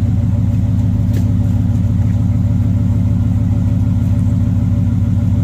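2018 Ford F-150 engine running steadily through a newly installed Flowmaster Outlaw exhaust, its exhaust tips not yet fitted: a loud, even, low exhaust rumble with no revving.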